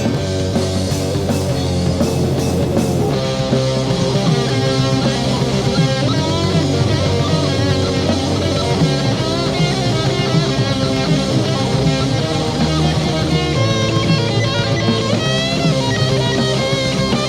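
Instrumental section of a rock song: electric guitars with a bending lead line over bass and drums, no vocals.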